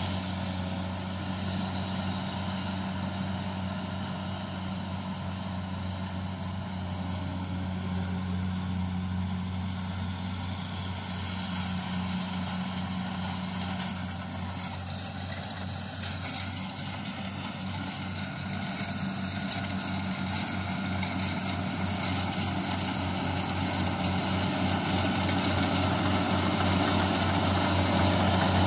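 Kubota rice combine harvester's diesel engine running steadily under harvesting load, a constant deep hum that grows louder over the last several seconds as the machine draws near.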